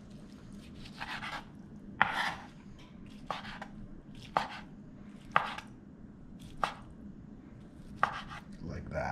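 Kitchen knife slicing through cooked sausage and tapping down on a plastic cutting board, one cut about every second.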